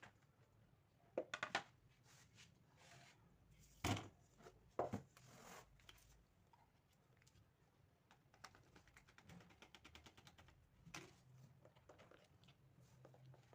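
Near silence broken by a few brief knocks and clicks: a cluster about a second in, two louder ones around four and five seconds in, and one more near eleven seconds.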